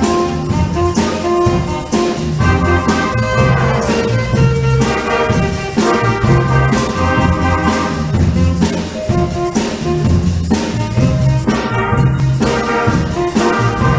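Middle school wind band playing a piece live: sustained brass and woodwind chords over a steady drum beat.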